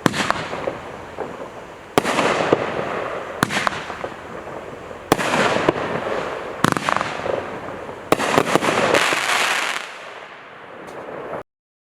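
A 16-shot consumer fireworks cake firing its shots one after another, a sharp report every second or two, each followed by a fading rush of noise. A quick cluster of shots comes about eight seconds in, and the sound cuts off abruptly near the end.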